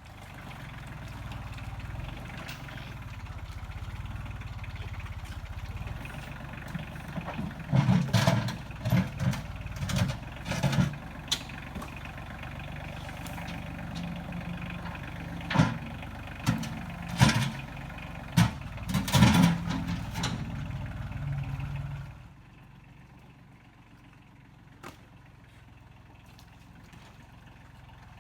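Tractor engine running steadily, with two bouts of loud knocks and clatter over it. About three-quarters of the way through, the engine drops to a quieter idle.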